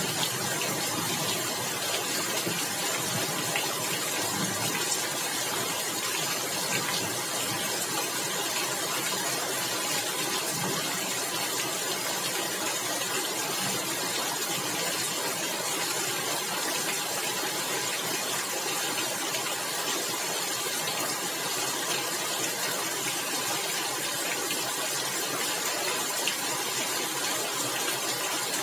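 Steady rain falling on a tiled roof, an even unbroken hiss of drops.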